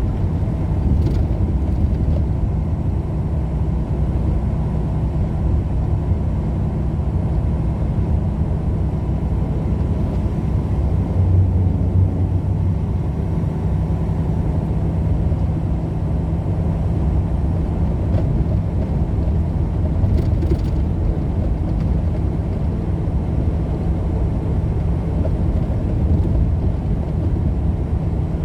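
Steady engine and road rumble heard from inside a vehicle driving at highway speed.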